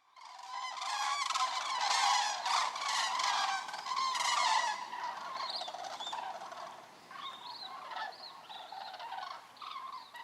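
A flock of large birds calling together, many overlapping calls. The calls are densest in the first four to five seconds, then thin out to scattered separate calls.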